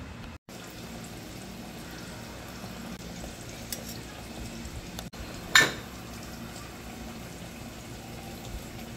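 Steady low kitchen background noise, with a single sharp clink of tableware about halfway through.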